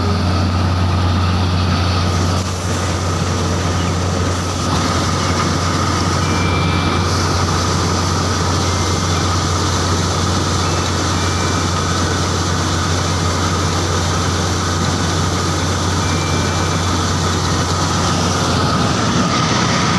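Sompreet 568 combine harvester running steadily, a loud continuous mechanical rumble with a low drone and a faint steady whine above it.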